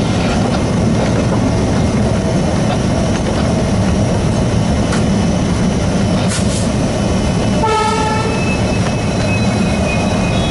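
Alco WDG-3A diesel-electric locomotive running under load, its 16-cylinder ALCO 251 engine chugging steadily as the train moves. About three-quarters of the way through, the locomotive's horn gives one short blast of under a second.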